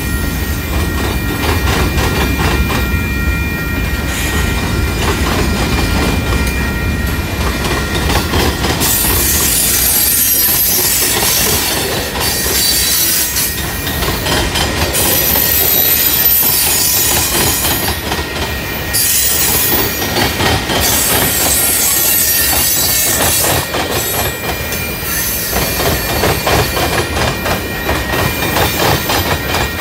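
Freight train cars, covered hoppers and tank cars, rolling steadily past close by: a continuous rumble of steel wheels on the rails, with a thin, steady high-pitched squeal of wheel flanges against the rail running throughout.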